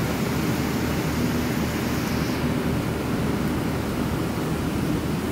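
Steady rain falling, an even hiss with no separate drops or other events standing out.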